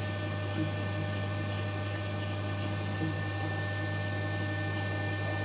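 Metal lathe running steadily while its tool takes a facing cut on a 17-4PH stainless steel collar, with coolant flowing. The sound is a constant hum with a few steady high tones over it.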